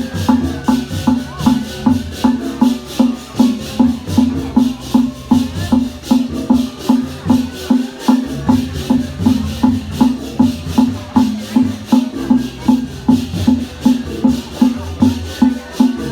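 Balinese processional gamelan music with a steady fast beat: a low metallic tone struck about two and a half times a second under a constant high rattling shimmer.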